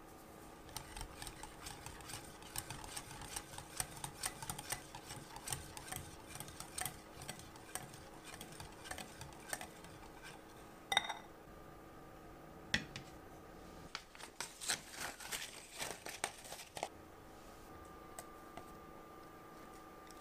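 Wire balloon whisk stirring cheesecake batter in a glass bowl: quick, irregular clicks and scraping of the wires against the glass. About eleven seconds in comes a single ringing tap on the bowl, then a second short burst of clicking and scraping before it goes quiet.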